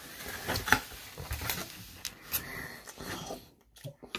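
Foam takeout container being opened and handled on a table: a few light knocks and scrapes, quieter toward the end.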